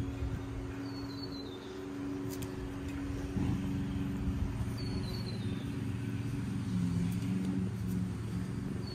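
A steady low engine hum that shifts pitch a couple of times, with a bird's short falling call about every four seconds.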